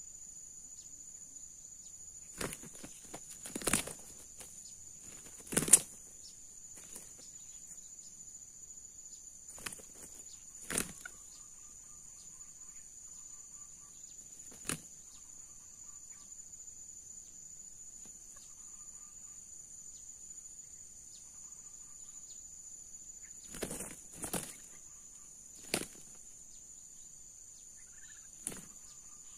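Red junglefowl cocks fighting: short bursts of wing flapping as they fly at each other, about nine times a few seconds apart, the loudest about six seconds in. A steady high insect drone runs underneath.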